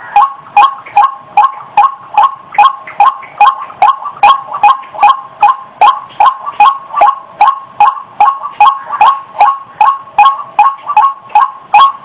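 White-breasted waterhen (ruak-ruak) calling: a loud, steady series of short croaking 'ruak' notes repeated about two and a half times a second, as used for a bird-lure call.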